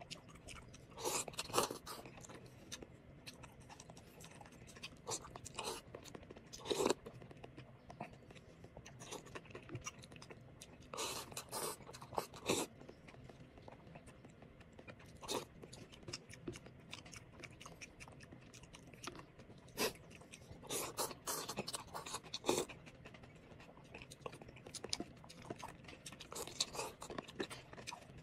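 A person eating noodle soup, chewing and slurping noodles and broth in short bursts every few seconds.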